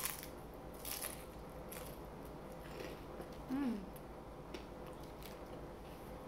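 Biting into and chewing a crispy fried crab rangoon close to the microphone: a crunch at the bite and crackly chewing. About three and a half seconds in comes a short hummed sound that falls in pitch.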